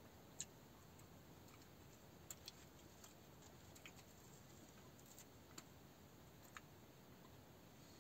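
Near silence: quiet room tone with a few faint clicks at irregular intervals.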